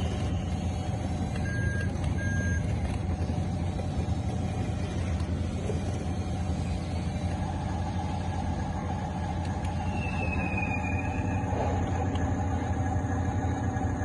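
Radio-controlled model bulldozer on crawler tracks running with a steady low motor hum. Two short beeps come about a second and a half in.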